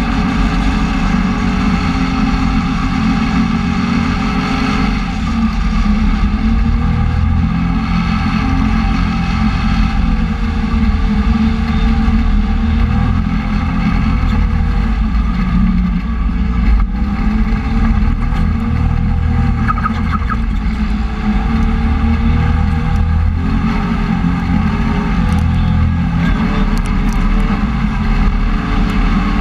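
Side-by-side UTV engine running under way off-road, its pitch rising and falling with the throttle over a steady low rumble.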